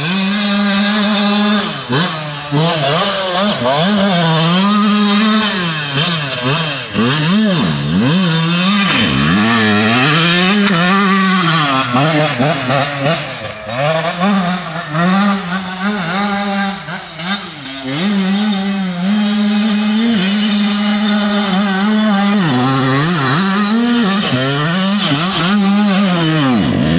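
Small dirt bike engine revving hard and backing off over and over as the bike is ridden, its pitch climbing with the throttle, holding, then dropping.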